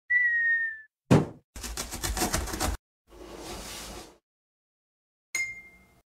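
Cartoon intro sound effects: a short whistle falling slightly in pitch, then a sharp hit and about a second of rattling, a softer whoosh, and near the end a brief ringing ding that fades.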